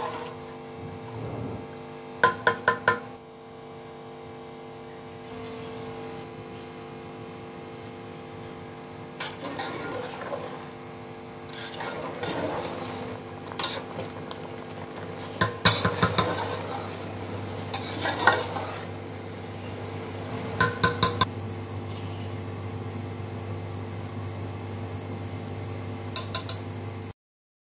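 A metal spoon knocks and scrapes against an aluminium cooking pot in quick clusters of three or four taps, repeated several times, while rice is stirred in boiling water. Underneath runs a steady hum and hiss. The sound cuts off suddenly near the end.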